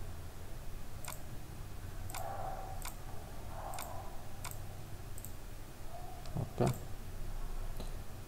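Computer mouse clicking: about eight single, sharp clicks roughly a second apart, with a louder, heavier knock about six and a half seconds in, over a faint low hum.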